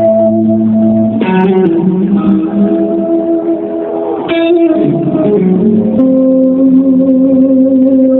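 Electric guitar playing a solo intro: long sustained notes and chords, changing about a second in, again around four seconds in, and at six seconds.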